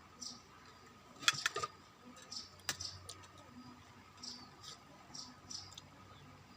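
A person eating, with soft wet chewing and mouth sounds every half second or so. A few sharp clicks come about a second and a half in and again near three seconds.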